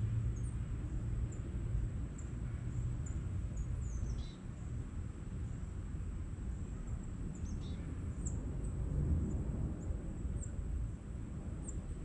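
Outdoor yard ambience: a steady low rumble with a thin steady high tone, and a few faint, short, high chirps from small birds, each sweeping downward, the clearest about four seconds in and again past seven seconds.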